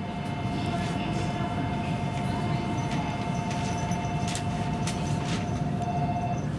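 Stationary W7 series Shinkansen train standing at the platform: a low steady rumble with a steady two-note whine that stops shortly before the end, and a few faint knocks.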